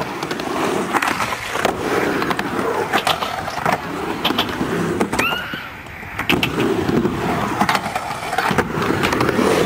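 Skateboard wheels rolling on a concrete skatepark surface with a steady rumble, broken by frequent sharp clacks and knocks. A brief rising squeak comes about five seconds in.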